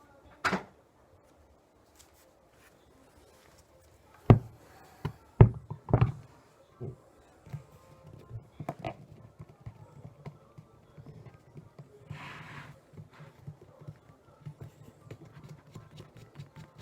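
A few heavy knocks and thumps, then a run of light, rapid ticking and low rattling, about three ticks a second.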